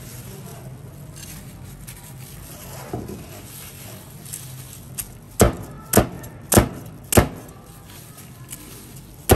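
Cleaver chopping through pieces of batter-fried squid onto a plastic cutting board: a run of five sharp chops, about one every half second, starting about five seconds in, and one more near the end.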